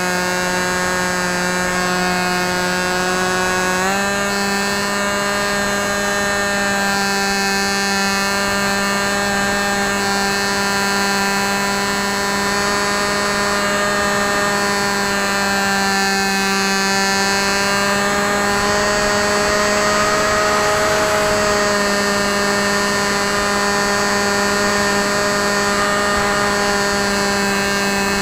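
Brushless outrunner motor (Hawking 2826, 2200 Kv) spinning a 6x4 APC pusher propeller, heard from a camera on board the flying RC plane: a steady whine that steps up in pitch about four seconds in as the motor speeds up, then holds with small shifts.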